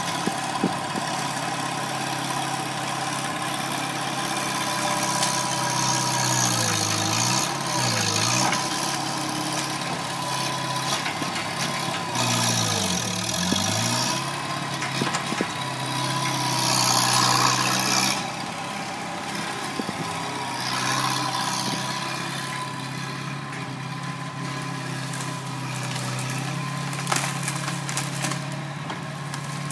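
Bobcat skid-steer loader's engine running steadily with a held whine, its speed dipping sharply and recovering twice, about a quarter and a half of the way through, as it takes load. Short bursts of hiss come and go with the work.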